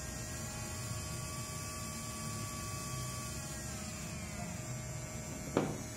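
Small 180-size brushed DC motor spinning on a bench supply at around 5 volts, giving a steady whine whose pitch falls about three to four seconds in as the voltage is turned down. A short knock near the end.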